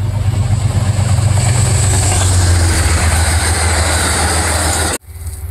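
Amtrak passenger train passing close by at speed: a deep rumble with the rushing, rattling noise of the coaches on the rails, growing louder and then holding. It cuts off suddenly about five seconds in, and a quieter train sound follows.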